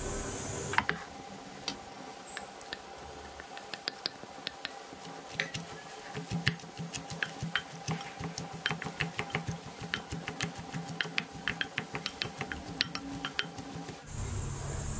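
A wooden spoon stirring and tossing a wet, chunky batter mixture in a glass bowl: a rapid, irregular run of small clicks, taps and squelches, thickest in the second half, ending shortly before the end.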